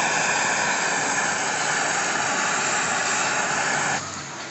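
Heat gun blowing hot air with a steady loud hiss and a faint whine, heating the quarter panel's seam to soften the adhesive; it cuts off suddenly near the end.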